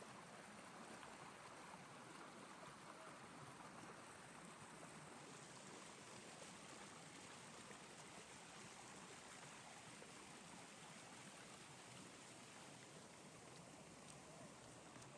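Near silence: a faint, steady hiss of outdoor ambience with no distinct events.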